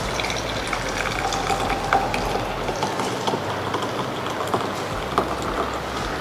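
Hot herbal decoction poured in a steady stream from a steel pan through a plastic tea strainer into a plastic jug, a continuous splashing with many small clicks.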